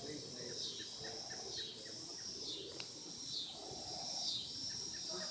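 Outdoor insect chorus: a steady high buzz that dips in pitch about once a second, with faint quick chirps about three a second behind it.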